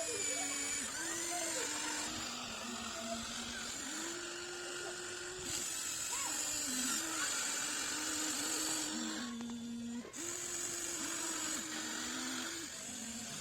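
Electric motors of a Huina 1593 radio-controlled excavator whining as it works. The pitch steps up and down as different functions start and stop, with a brief pause a little after 9 seconds.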